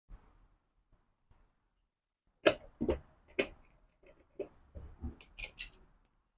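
A string of about eight short, sharp knocks and clunks over roughly three seconds, starting a couple of seconds in: hard objects being handled and set down during work on a motorcycle wheel and tyre.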